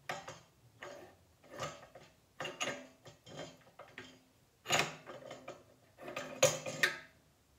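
Stainless-steel pressing barrel of a home oil press being twisted in its locking groove on the press head: a series of metal scrapes and clicks, the loudest about five seconds and six and a half seconds in.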